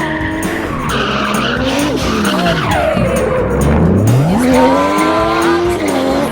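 Drift car engine revving with tyres skidding: the engine note drops sharply about halfway through, then climbs back up.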